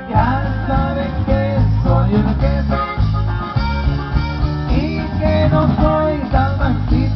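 Norteño band playing live through a loud concert sound system, with guitar over a heavy bass and drum beat.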